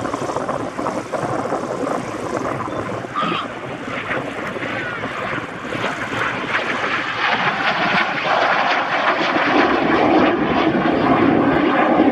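Cessna O-1 Bird Dog's single piston engine and propeller running in a low flypast, growing louder in the second half.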